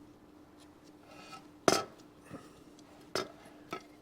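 Small hard objects knocking and clinking on a workbench as a circuit board and tools are handled: three sharp knocks, the loudest about one and a half seconds in, over a faint steady hum.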